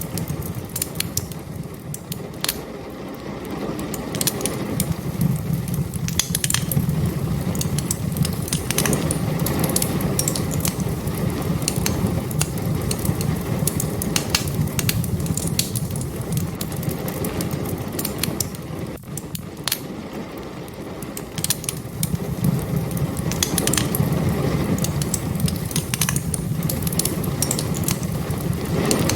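Wood fire crackling, with frequent sharp pops and snaps scattered unevenly over a steady low rumble.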